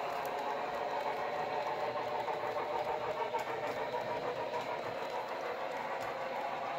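HO scale model train running along the track: a steady whirring run with faint irregular clicks from the wheels on the rails.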